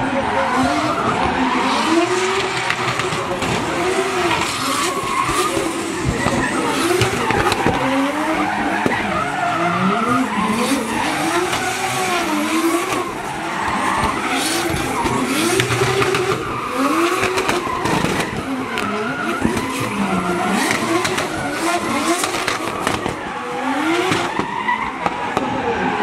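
Two drift cars sliding in tandem, their engines revving up and down over and over as the throttle is worked, with tyres skidding and squealing throughout.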